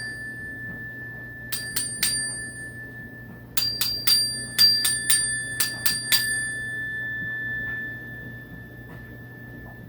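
Zenergy chime, a single metal bar on a wooden block, struck and left to ring with one clear bell-like tone. Two strikes come about a second and a half in, then a quick run of about eight strikes between three and a half and six seconds, after which the tone rings on and slowly fades.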